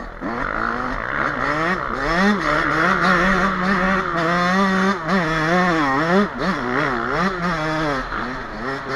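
Yamaha YZ125 two-stroke engine with an HGS expansion-chamber exhaust, ridden hard on a dirt trail. Its pitch rises and falls over and over as the throttle is opened and shut and the gears change.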